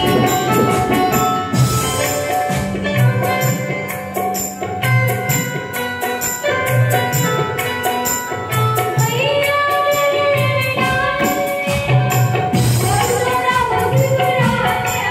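Music with a steady percussion beat under a melody that holds and glides in pitch.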